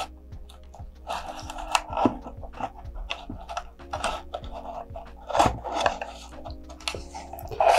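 A tool poked through a fin slot scraping and tapping inside a cardboard model-rocket body tube, feeling for a dropped paper piece. Irregular scrapes and taps, the loudest about five and a half seconds in.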